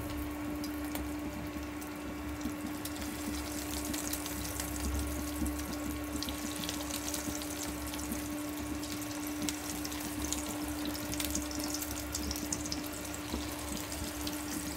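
Breaded potato-chicken donuts deep-frying in hot ghee: a steady sizzle with fine crackles, over a steady low hum.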